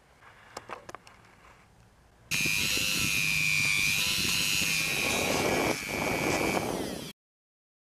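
Handheld rotary tool running at high speed with a steady high whine, its bit grinding a hollow into a fishing lure's wooden body. It starts suddenly about two seconds in and cuts off abruptly near the end, after a few faint clicks.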